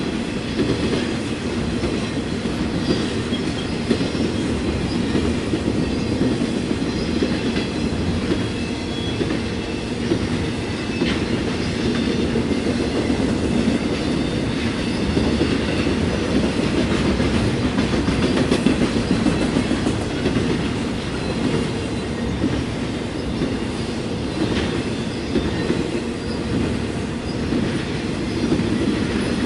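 Trailer-carrying cars of a fast intermodal freight train rolling past: a steady, loud rumble of steel wheels on rail with clickety-clack over the rail joints.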